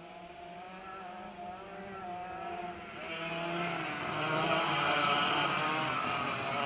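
Several two-stroke racing kart engines buzzing at speed, their overlapping notes growing louder from about three seconds in as the pack of ROK Kids karts comes closer.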